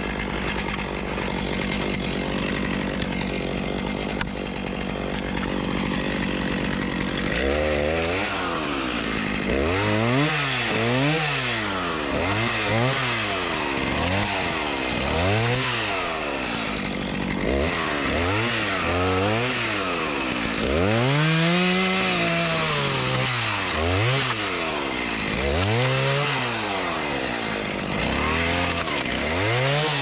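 Chainsaw running at a steady pitch at first. From about a quarter of the way in, the engine revs up and falls back over and over, about once a second, as it works through wood.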